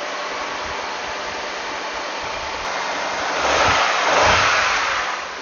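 Honda Accord F23A1 four-cylinder engine idling steadily, freshly restarted after a timing belt and water pump replacement and running smoothly without shaking. A louder rushing noise swells for about a second and a half past the middle.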